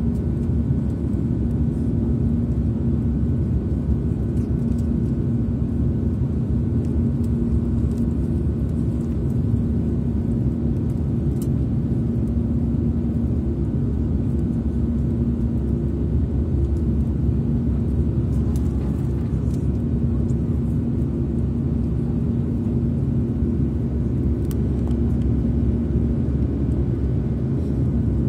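Airbus A340 cabin noise in the climb: a steady low jet-engine and airflow rumble with an even hum running through it.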